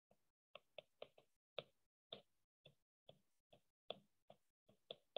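Faint, irregular clicks of a stylus tapping and writing on a tablet's glass screen, about a dozen over a few seconds, with near silence between them.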